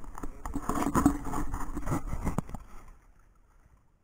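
Busy clicking and scraping as a fishing hand line is hauled in over the side of a small outrigger boat, stopping abruptly about three seconds in.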